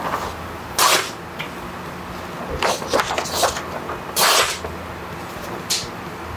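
A freshly sharpened kitchen knife slicing through a hand-held sheet of paper, with paper rustling: several short hissy swishes, the loudest about a second in and about four seconds in. This is a paper test of the edge's sharpness.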